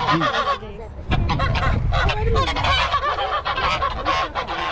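A flock of Toulouse geese honking over and over, several calls overlapping.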